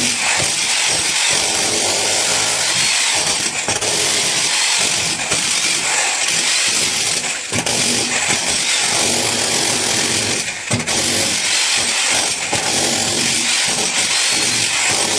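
A power tool running continuously under load in masonry work for concealed bathroom plumbing, easing off briefly twice, about halfway and about two-thirds of the way through.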